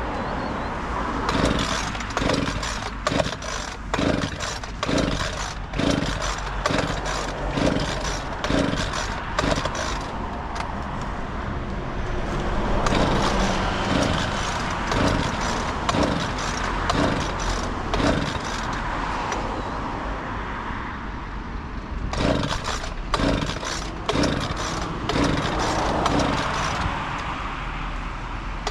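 Road traffic passing close by, loudest as a bus goes past near the middle, over a regular low thump a little more than once a second.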